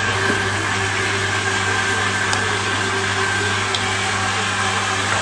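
Steady motor hum under an even hiss, with a couple of faint clicks along the way.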